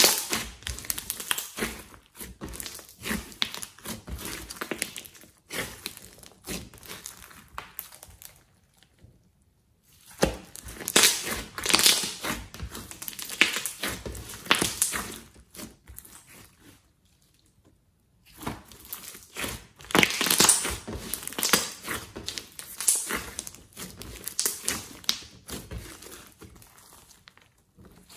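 Hands squeezing, poking and stretching a large blob of glossy slime mixed with clay, making rapid trains of small wet clicks and pops in bursts. The sound stops twice, around nine seconds in and again around seventeen seconds in.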